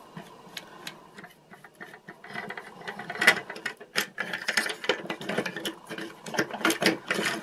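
Small plastic gears and parts of a vintage Radio Shack Wheelie Bug toy clicking and rattling as fingers work them loose. Faint scattered clicks become a busy run of irregular clicks about two seconds in.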